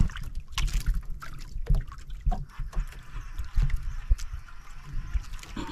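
Water lapping and gurgling against the hull of a small outrigger boat, over an uneven low rumble, with scattered light knocks and clicks.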